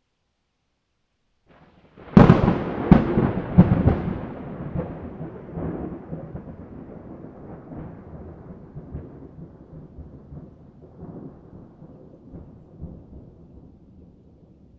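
A thunderclap: a sudden crack about two seconds in, two more sharp cracks within the next two seconds, then a long rolling rumble that slowly fades away.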